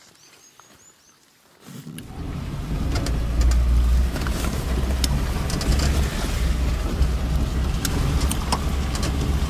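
Vehicle driving over a rough, wet road, heard from inside: a steady low rumble with scattered knocks and rattles that starts about two seconds in.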